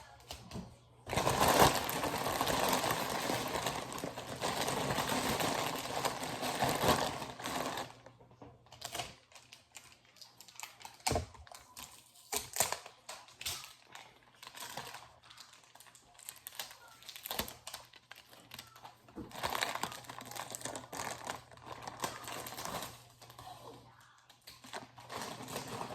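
Rustling and handling noises from packing a box: a long stretch of crinkling for several seconds, then scattered clicks and taps, and another short burst of rustling near the end.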